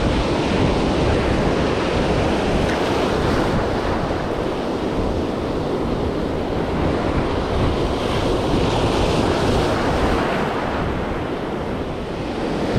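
Ocean surf breaking and washing over a rocky reef shore, a steady rush of water, with wind on the microphone.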